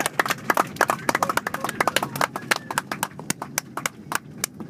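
Passengers clapping in an Airbus A330's cabin just after touchdown. The applause is dense at first and thins out to scattered claps near the end, over the low rumble of the landing roll.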